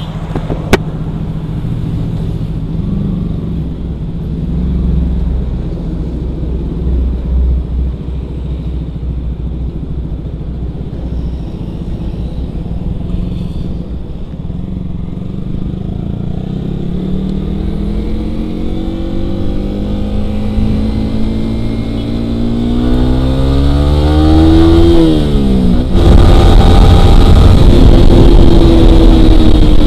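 Yamaha R15's 155 cc single-cylinder engine through a Ronin Black Katana aftermarket racing exhaust, idling, then pulling away as the revs climb steadily for several seconds. Near the end the revs drop sharply at a gear change, and the engine runs on at speed under loud rushing wind.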